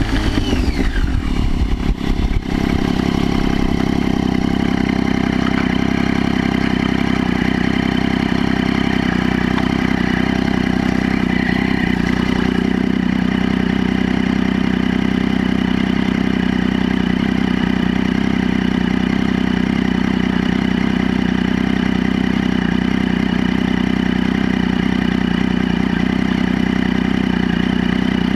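Motorcycle engine heard from a camera mounted on the bike: its revs fall over the first couple of seconds as it rolls to a stop, with a couple of knocks, then it idles steadily.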